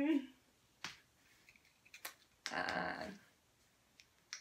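A few sharp, snap-like clicks from a signer's hands, with a voiced sound trailing off at the very start and a short breathy burst about two and a half seconds in.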